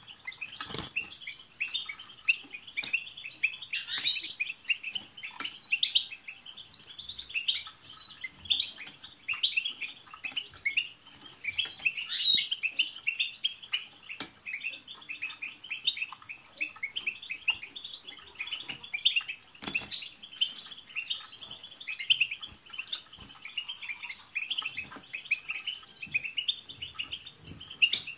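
Several European goldfinches chattering together: a dense, unbroken stream of quick twittering notes, with high tinkling calls scattered through it.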